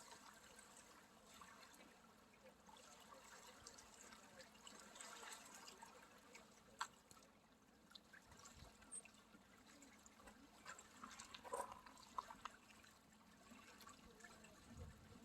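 Near silence: faint outdoor background hiss with a few small clicks.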